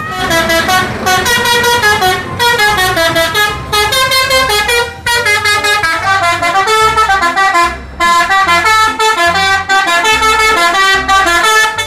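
Musical multi-tone air horn of an Indonesian tour bus (telolet horn) playing a quick tune of stepping notes, in several phrases with short breaks about five and eight seconds in.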